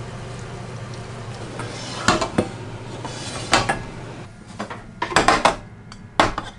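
Stainless steel bowls and a spatula or spoon clanking and clinking as stir-fried pork and rice are dished up: a few sharp clanks from about two seconds in, then a quick cluster near the end. A steady hum under the first part drops away about four seconds in.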